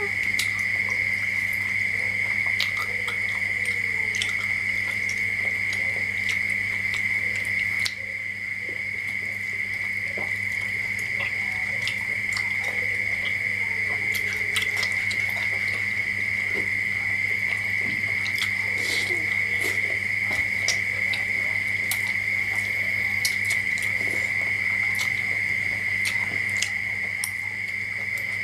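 Close-up eating sounds: small wet clicks and lip smacks of chewing and handling soft food with the fingers, scattered through, over a loud steady high-pitched drone and a low hum.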